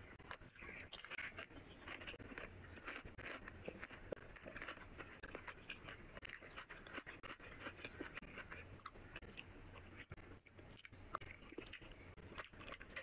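A person eating rice and curry by hand: chewing and mouth sounds, with fingers working the food, heard as a steady run of small, irregular wet clicks.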